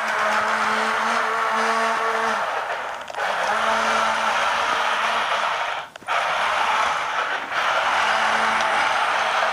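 Remote-control toy tank built on a G.I. Joe Mauler body, its electric drive motors and gearbox whirring steadily as it runs. The whirr drops out briefly about three seconds in and again about six seconds in as it stops and starts.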